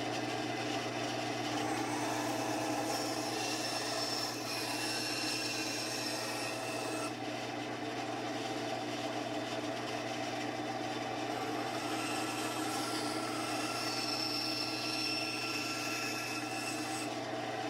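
Benchtop bandsaw running with a steady motor hum while its blade cuts Kydex sheet, a rasping cut whose pitch shifts every few seconds as pieces are fed through.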